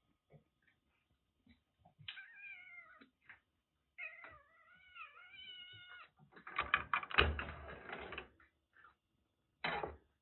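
A kitten meows twice: a short falling call, then a longer wavering one. A louder stretch of clattering and rustling follows, and a brief knock comes near the end.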